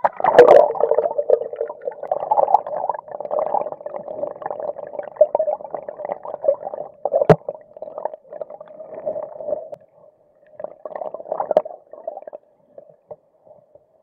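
Stream water gurgling, heard from a camera submerged in it, muffled and dull. A loud splash-like burst comes as it goes under at the start, then scattered knocks and one sharp click about seven seconds in. It quietens in the last couple of seconds.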